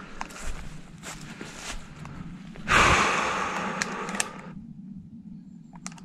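Rustling, crackling steps through brush, then about halfway through a single shotgun shot whose echo dies away over nearly two seconds.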